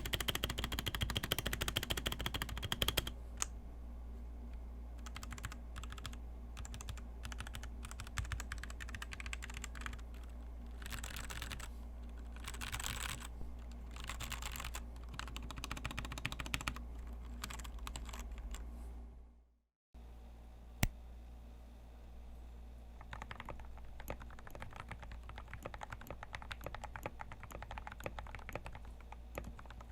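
Typing on a Royal Kludge RKG68 65% mechanical keyboard with RK red switches, a steady run of key clacks. Around two-thirds of the way through the sound drops out and a second typing recording begins, without the low hum under the first.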